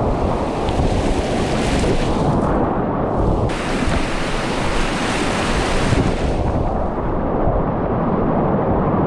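Loud, low rushing of whitewater rapids at high flow, heard from a kayak in the rapid. A brighter hiss of spray swells and fades twice.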